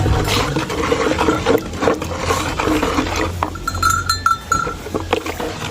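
A herbal mixture being stirred in a bucket, with irregular knocks and scrapes, over a steady low hum.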